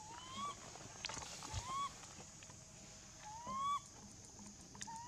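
Infant long-tailed macaque giving about four short, rising, whistly coo calls, a second or more apart.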